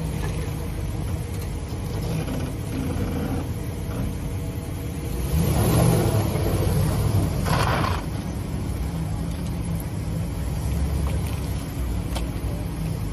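A motor vehicle engine running steadily with a low rumble, swelling louder for a couple of seconds around the middle.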